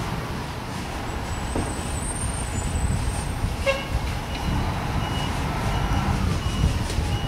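1992 Spartan Gladiator fire engine's diesel engine running as the truck backs up. A short toot about halfway in, then its back-up alarm beeping steadily, a little under two beeps a second.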